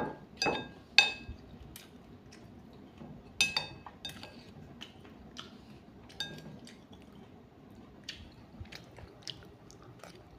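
A person chewing and biting into banana blossom salad with chicken, with several short ringing clinks of a spoon against a plate, most of them in the first four seconds.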